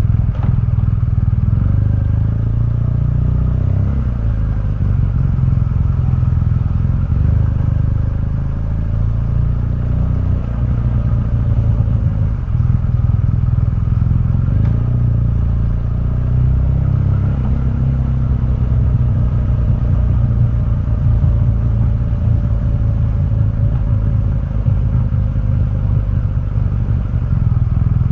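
2015 BMW R1200GS liquid-cooled boxer twin through its stock exhaust, ridden on the road, with engine speed rising and easing off several times.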